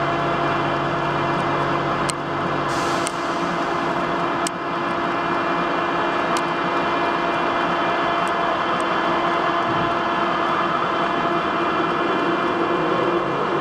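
Old belt-driven metal lathe running steadily, a hum of several steady tones from its motor, belts and gearing, with a few brief clicks in the first seven seconds.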